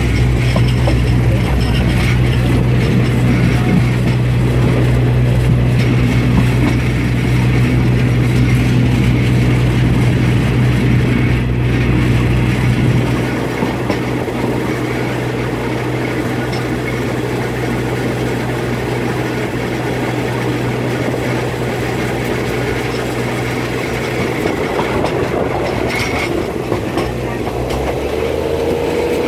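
Diesel railcar running along the line, heard from inside the carriage: a steady low engine hum under wheel and rail noise. About halfway through, the engine note drops and the ride becomes quieter.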